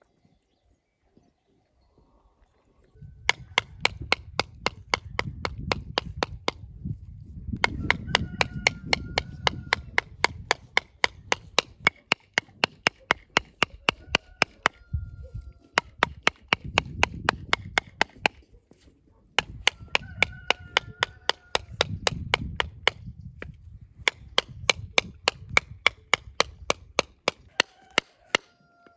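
Metal mallet striking a whole husked coconut to crack its shell, rapid sharp knocks about four a second in runs broken by short pauses, starting about three seconds in.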